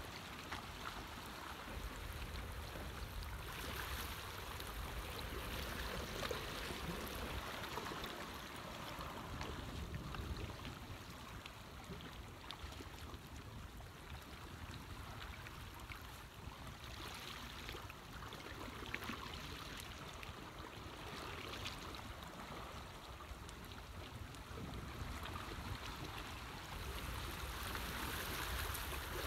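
Steady water noise, an even rushing and sloshing with no distinct events.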